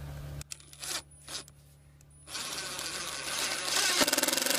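Red cordless impact driver driving a stainless trim-head screw into a wooden door jamb: the motor runs up about two seconds in, and near the end it hammers in a rapid rattle, the loudest part.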